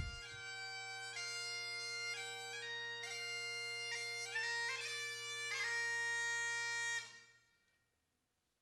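Bagpipes playing a melody over steady drones, stopping abruptly about seven seconds in.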